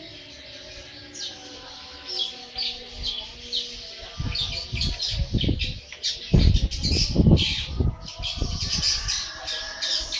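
Young long-tailed shrike (cendet) singing busily: a rapid run of short, high, scratchy notes that grows denser as it goes. Several loud low thumps fall in the middle, the loudest a little past halfway.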